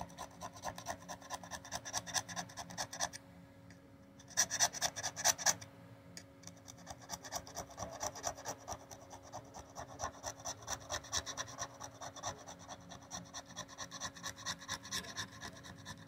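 Metal blade scraping leftover battery adhesive off the inside of a MacBook Pro's aluminium case in quick, repeated short strokes, several a second. The scraping pauses briefly about three seconds in, then comes back louder for a second or so.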